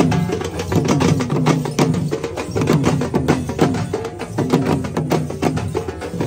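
Traditional Adivasi procession music: barrel drums and a small drum beaten with sticks in a fast, dense rhythm, with dancers' hand-held sticks clacking and a wavering melody line above.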